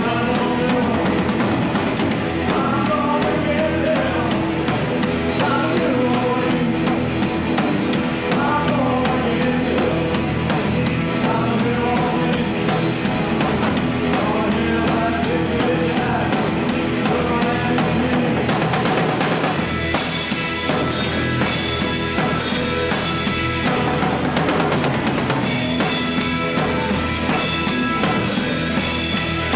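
Rock band playing live: electric guitars, bass and drum kit, with a singer's voice over the first two-thirds. About twenty seconds in, the drums and cymbals come forward and the playing gets heavier.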